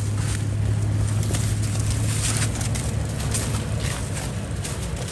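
Toyota FJ Cruiser's V6 engine running low and steady as the truck crawls up a rutted dirt trail, with irregular crunching footsteps on dry leaves and dirt.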